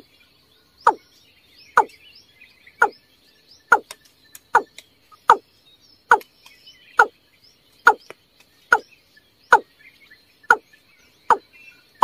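Water cock calling: a regular series of short notes, each falling quickly in pitch, about one a second.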